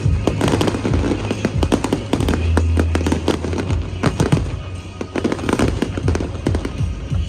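Fireworks display: a rapid, dense run of aerial shell bursts and crackling, with music playing underneath.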